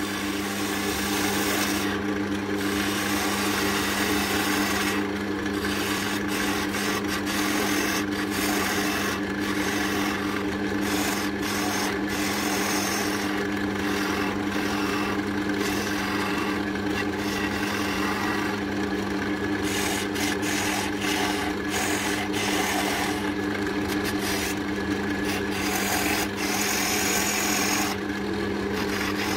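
Wood lathe running with a steady motor hum while a hand-held turning tool cuts a spinning oak handle blank, making a continuous scraping, rasping sound as shavings come off.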